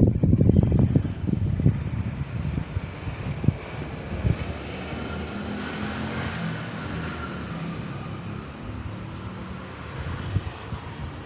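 Irregular low buffeting like wind on the microphone in the first couple of seconds, then a steady rushing noise that swells and fades in the middle, like a passing road vehicle.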